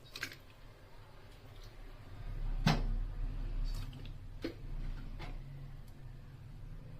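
A few scattered sharp knocks and clicks of kitchen utensils and cookware being handled, the loudest a little under three seconds in, over a low steady hum.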